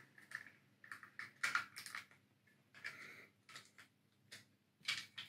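Plastic parts of a Power Rangers RPM Whale Bomber Zord toy clicking and rattling as it is folded back into whale mode: faint, irregular clicks and snaps, the strongest about one and a half seconds in and near the end.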